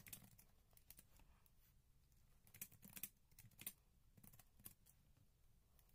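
Faint, irregular keystrokes on a computer keyboard as someone types.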